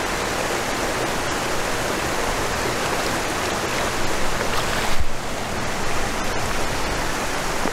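Steady rushing of river current flowing over shallow rocks, briefly louder about five seconds in.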